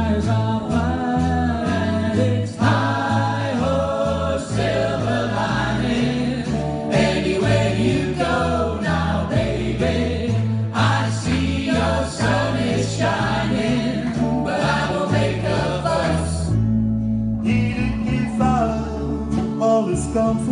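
Rock and blues band playing a song with singing over a steady bass line.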